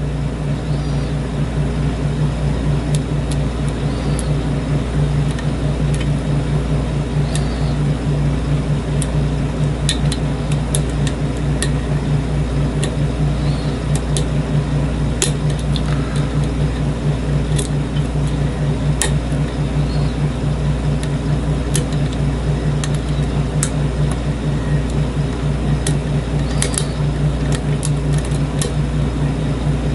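A steady low hum runs under light, irregular metallic clicks from lock picks and a tension wrench working the pins of a challenge lock cylinder, which keeps catching in a false set.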